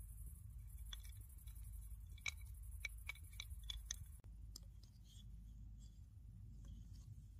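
Faint low rumble of wind on the microphone, with a run of light, sharp clicks and ticks from about one to four seconds in.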